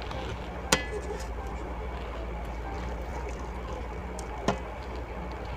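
Eating at a table: a utensil clinks sharply against a dish twice, once with a short ring about a second in and again near the end, over a low steady hum.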